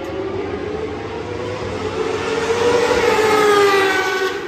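Racing superbike at full throttle passing along the main straight. The engine note grows louder as the bike approaches, peaks about three and a half seconds in, then drops in pitch as the bike goes by.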